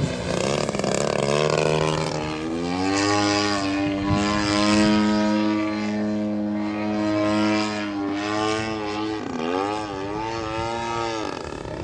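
Propeller-driven RC aerobatic plane flying overhead: a giant-scale Jamara Yak 54 with a DL56 two-stroke gasoline engine. The engine's pitch rises a couple of seconds in and holds steady. Near the end it dips and climbs again, then drops off.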